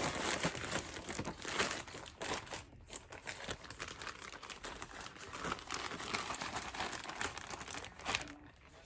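Packaging being crinkled and rustled by hand as a parcel is opened, a continuous crackle that dies down near the end.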